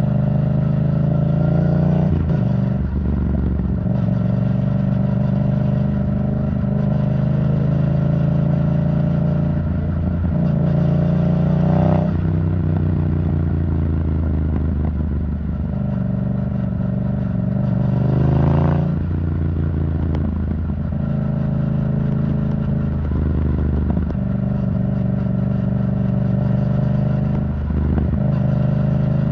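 Yamaha MT-07 parallel-twin engine through an Arrow Thunder titanium exhaust, ridden along at mostly steady revs. The note climbs and then breaks off sharply at a gear change about twelve and nineteen seconds in, with shorter breaks near the start and towards the end.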